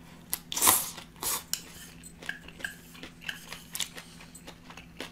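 Eating at close range: a short loud slurp of food from a small bowl with chopsticks just under a second in, then chewing with light clicks of wooden chopsticks against the bowl.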